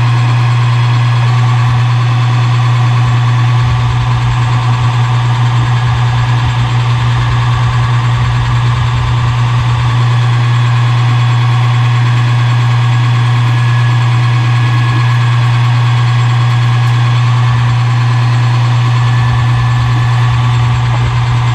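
Metal lathe running while a spacer is faced off: a loud, steady motor hum with a fainter whine and cutting noise above it.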